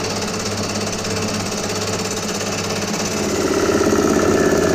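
Mill-drill running a somewhat blunt cutter head across the cast-iron face of a Mazda rotary engine end plate: a steady machine hum with cutting noise, growing louder about three seconds in.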